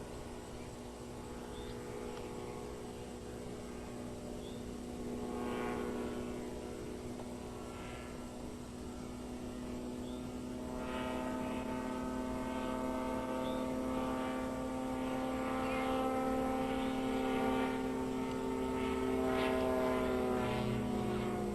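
Titan Tornado light airplane's propeller engine droning at a steady pitch during aerobatics, growing louder from about halfway through.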